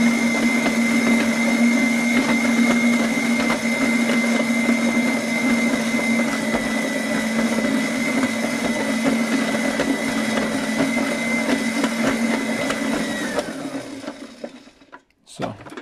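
Electric stand mixer's motor running steadily with a high whine and a low hum as it kneads a stiff dough. About 13 seconds in it winds down, the whine falling as it stops, followed by a few brief knocks near the end.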